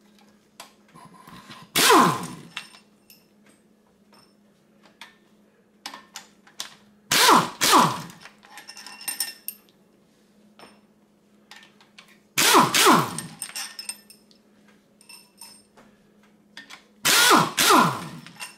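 Impact wrench spinning out the 12-point 14 mm head bolts of a Subaru EJ25 engine, in four short runs about five seconds apart, each falling in pitch. Light clinks of bolts and tools come between the runs.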